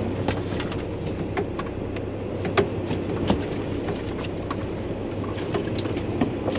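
Boat engine idling steadily, with scattered light clicks and knocks of gear handled on the deck, two of them sharper a little past the middle.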